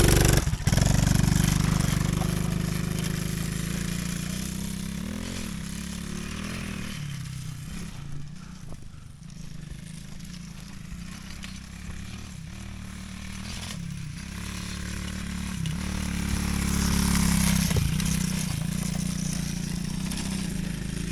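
Small off-road vehicle engine revving hard, fading as it moves away, then growing loud again as it comes back about three-quarters of the way through.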